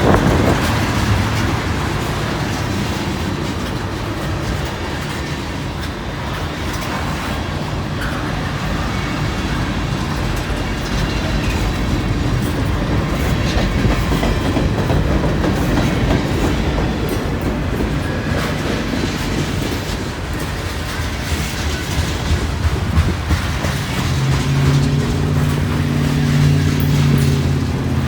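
Long freight train rolling past close by, its wheels clacking over the rail joints in a steady rumble. A low, steady humming tone joins in near the end.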